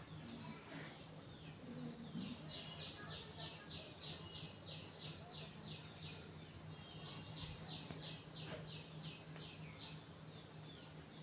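A bird calling: two runs of short, sharp, high notes repeated about four times a second, over a steady low hum.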